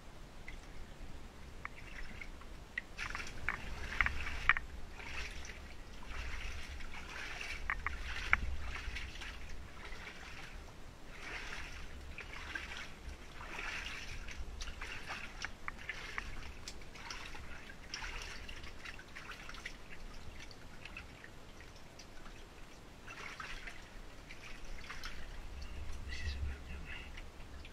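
Shallow water in a flooded mine passage splashing and sloshing irregularly as someone crawls through it, with a few sharp knocks about 4 and 8 seconds in.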